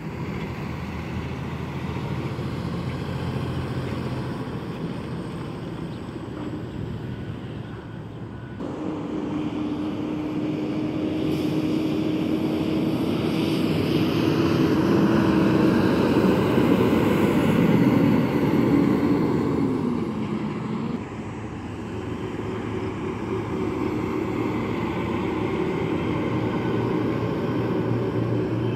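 Truck engines running, in three stretches joined by abrupt cuts about 9 and 21 seconds in. In the middle stretch the engine grows louder, with a steady hum that drops in pitch near its end.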